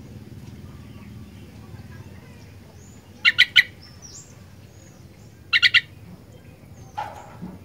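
Sooty-headed bulbul (kutilang) calling: two quick bursts of three loud, sharp notes about two seconds apart, then a fainter call near the end, over a low steady hum and faint chirps.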